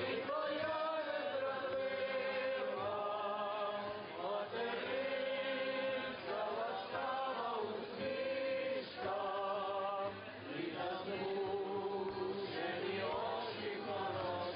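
A group of young people singing a hymn together in chant-like phrases, with long held notes and brief pauses between phrases.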